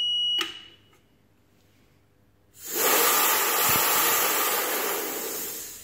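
Alarm buzzer of a 300 bar mini air compressor, which signals the automatic stop at 30 MPa, sounds a steady high tone and cuts off with a switch click less than half a second in. About two seconds later a loud hiss of high-pressure air being bled off at the valve below the pressure gauge starts suddenly and slowly fades.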